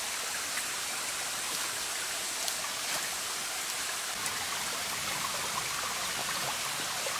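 Steady rushing hiss of running water, like a stream, with a few faint ticks.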